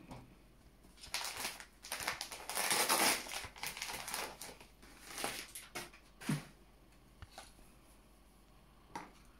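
Wrapping paper crinkling and rustling in irregular bursts as a small gift-wrapped package is unwrapped by hand, loudest about three seconds in, then dying down.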